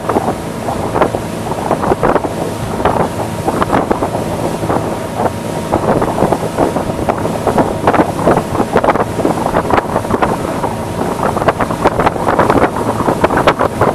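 Motorboat underway across choppy water: a steady engine drone under the irregular slap of the hull on the waves, with wind buffeting the microphone.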